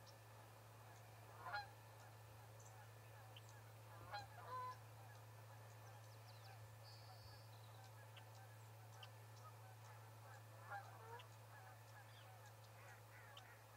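Faint, scattered bird calls, a handful of short pitched notes spread across the stretch, over a steady low electrical hum.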